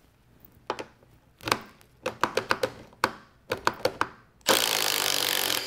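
A quick series of clicks and knocks, then about four and a half seconds in a Milwaukee M18 Fuel Gen 3 impact driver starts up and runs loud and steady, drilling into wood.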